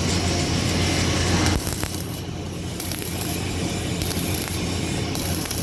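Electric arc welding: a steady crackling hiss over a low hum, the arc cutting off about a second and a half in while the low hum carries on.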